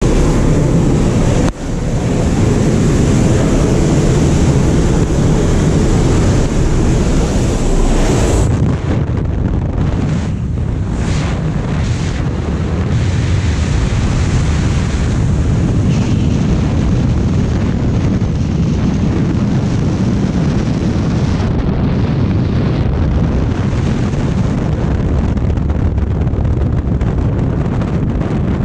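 Loud rushing wind on the camera's microphone: first the noise at the jump aircraft's open door, then, about eight and a half seconds in, it changes abruptly to the duller, steady rush of freefall once the skydivers have exited.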